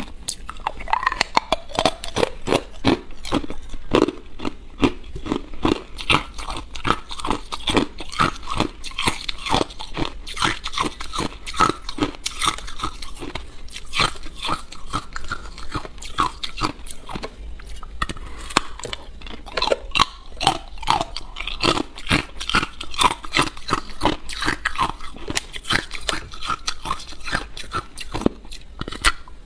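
Ice being bitten and chewed: a continuous run of crunches in quick succession.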